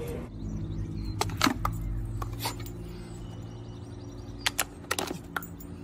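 Sharp plastic clicks from the paw-print pedal of a dog water fountain, a few single clicks and then a quick cluster near the end, over a steady low hum.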